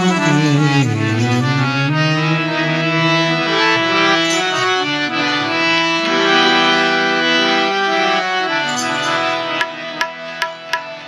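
Harmonium playing a slow melody of held notes, after a sung note with a waver trails off in the first two seconds. Four sharp percussive taps, about 0.4 s apart, come near the end.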